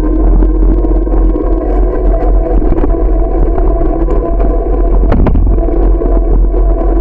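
Steady rolling noise of a bicycle ride picked up by a bike-mounted camera: heavy low rumble with a faint steady hum and small rattles. A sharp knock comes about five seconds in.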